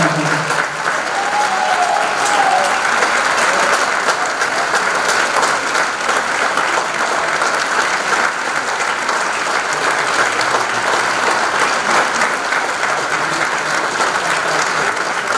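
Audience and orchestra applauding steadily after a piano concerto.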